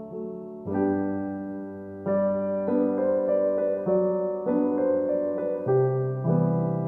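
Background music: a gentle solo piano piece playing soft chords and a slow melody.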